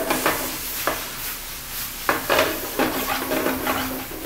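Cranberries and orange pieces sizzling in a hot pan as they are stirred, with a spoon knocking against the pan a few times.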